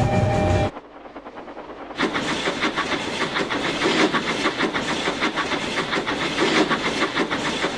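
Toy train set: a two-tone horn cuts off just under a second in. From about two seconds a steady hissing, rattling run sound follows, with rapid fine clicks like a steam chuff or wheels on track.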